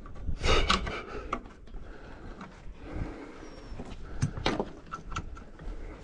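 Hard knocks and scraping rubs from a small boat's hull and gear being handled and shifted, with two louder clatters, about half a second in and about four seconds in.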